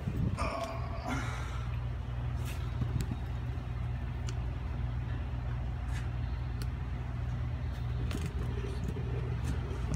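Steady low hum under scattered light clicks and knocks of brake shoes and their hardware being handled and set in place on a truck drum-brake assembly.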